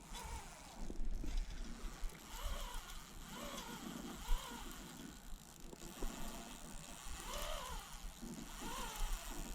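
Fishing reel drag giving line as a hooked redfish runs, in several short pulses that rise and fall in pitch.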